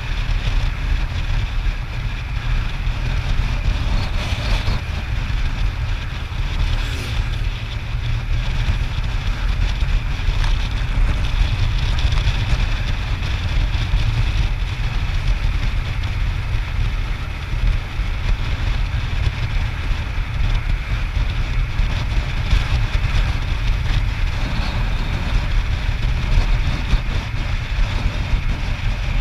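Wind rushing and buffeting over the microphone of a motorcycle riding at road speed, with the motorcycle's engine and tyre noise running steadily underneath.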